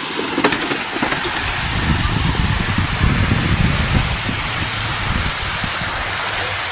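Wind buffeting the microphone: an uneven low rumble under a steady hiss, swelling in the middle and easing a little toward the end.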